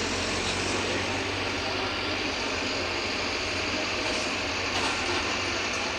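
Mercedes-Benz OF-1721 BlueTec 5 city bus's diesel engine running steadily under way, with a constant low hum and road noise, and a few small rattles near the end.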